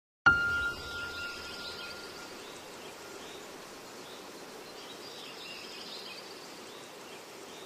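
Outdoor ambience of steady background noise with faint bird chirps. It opens with a sudden hit and a ringing tone that fades away over about two seconds.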